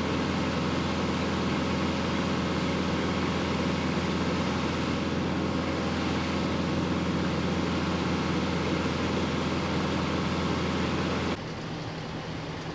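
A large engine running steadily with a strong low hum. About eleven seconds in it cuts off suddenly to a quieter, more distant engine rumble.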